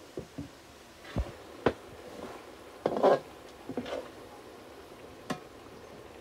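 Spatula stirring meat and chopped tomatoes in a steel kadai, scraping and knocking against the pan in short, irregular strokes, the loudest about three seconds in.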